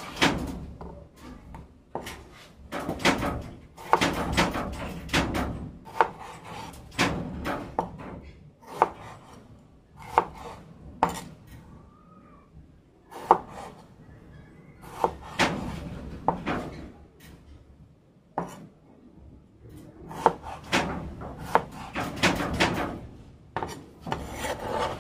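Knife cutting tomatoes on a chopping board: sharp taps of the blade against the board at an uneven pace, with runs of quick cuts between single strokes.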